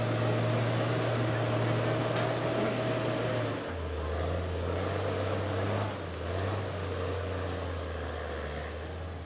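Caterpillar grapple skidder's diesel engine running under load as the machine grapples and drags logs. The engine note steps down to a lower pitch a little over a third of the way in and rises and falls after that.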